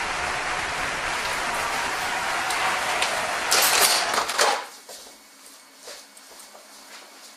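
Crowd applause and cheering, a steady wash of clapping that swells briefly and then cuts off sharply about four and a half seconds in as the glass balcony door is shut. A few faint knocks and clicks follow.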